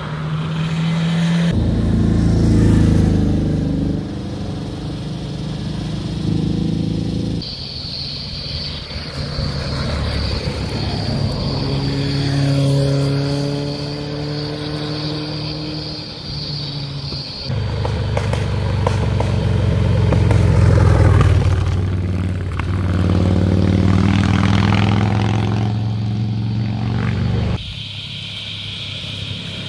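Motorcycle engines passing through a bend one after another, revving and rising and falling in pitch as the riders go through the gears, with a car among them. The sound jumps abruptly several times as short takes are cut together.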